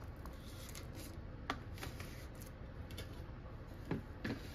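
Wooden spoon cutting into baked casserole and knocking lightly against a foil aluminium pan: quiet handling with a few sharp light clicks, one about a second and a half in and two close together near the end.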